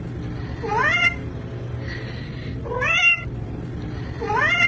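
Domestic cat meowing three times, about two seconds apart, each meow rising in pitch.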